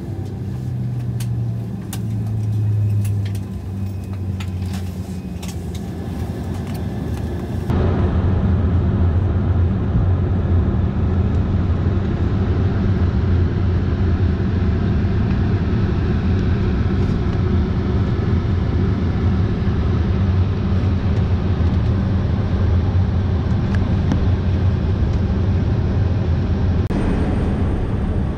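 Engine and airflow drone inside an Embraer ERJ-170 airliner's cabin, steady with a low hum, with scattered clicks and rattles in the first several seconds. About eight seconds in it jumps abruptly to a louder, steadier drone.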